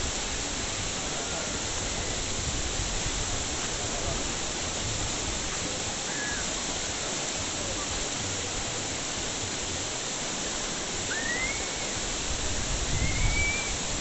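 Steady rushing noise of running water, with two short whistle-like calls near the end.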